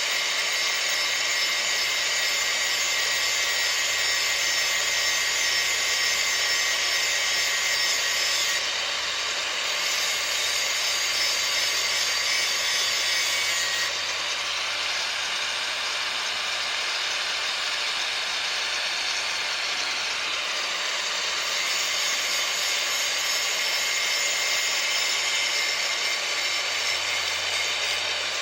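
Power grinder grinding the cutting edge of a steel lawn mower blade to sharpen it: a steady, loud, harsh hiss, with small shifts in tone as the blade is moved against the wheel.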